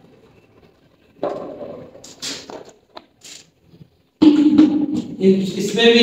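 A few knocks and scrapes of plastic paint buckets and lids being handled. About four seconds in, background music with steady tones and light percussion cuts in.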